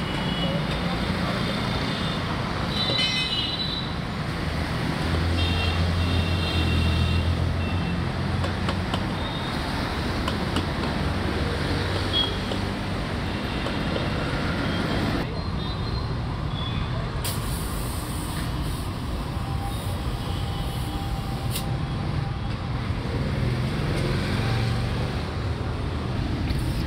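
Steady street traffic noise from passing motor vehicles, with a low engine hum standing out for a few seconds early on.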